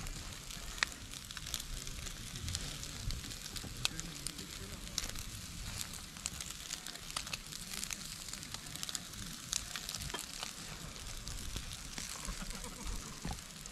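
Pork and chicken yakitori skewers sizzling over charcoal on a mesh grill: a steady high hiss with frequent small crackles and pops.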